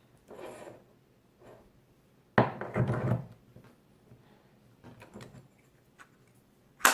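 An NRG steering-wheel quick release being handled and worked with its button pressed in: soft handling noises, a sudden clack and rattle about two and a half seconds in, and a single sharp click near the end.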